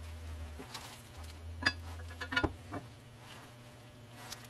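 Light clicks and knocks of the painted steel bars of a brick carrier being handled and set against each other, most of them in a quick cluster near the middle. A low hum runs underneath and stops about three seconds in.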